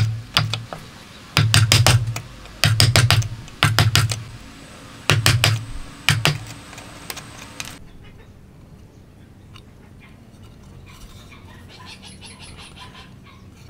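A wooden-handled chisel struck hard on its handle, chopping dovetail waste out of hardwood end grain: short clusters of two to four sharp knocks with a dull thud, about one cluster every second or so, stopping after about six seconds.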